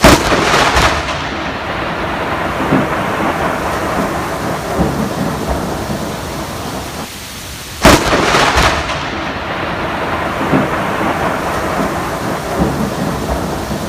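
Two sharp, very loud thunderclaps from lightning striking close by, about eight seconds apart, each fading back over a second or so into the steady noise of heavy rain.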